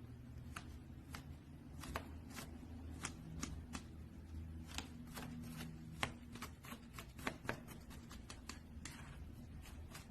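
Slime being handled, giving faint irregular clicks and small pops, about one or two a second, over a low steady hum.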